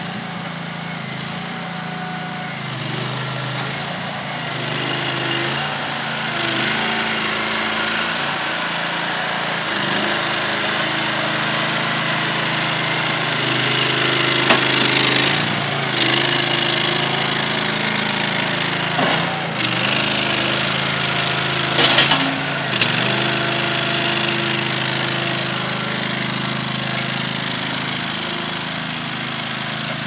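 Small engine of a towable mini backhoe running continuously, its pitch stepping up and down as the machine is worked. A few sharp knocks come in the middle stretch.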